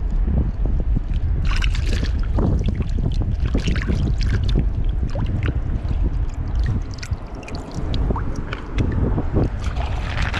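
Wind buffeting the microphone in a heavy low rumble, with water sloshing and many scattered small clicks and knocks; the rumble eases briefly about two thirds of the way through.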